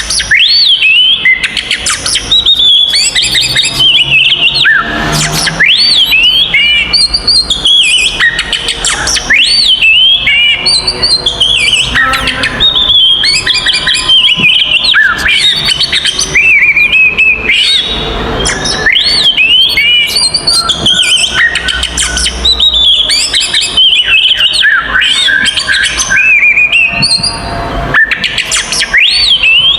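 Oriental magpie-robin (kacer) singing loudly and without pause, a rapid, varied stream of sweeping whistles and chattering notes. This is the excited fighting song used to provoke other magpie-robins.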